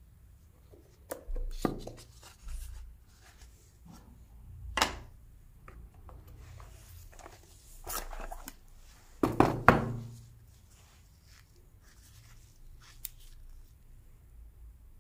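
Cardboard phone box and its contents being handled and unpacked: scattered taps, scrapes and knocks of card and plastic, the loudest cluster about two thirds of the way through.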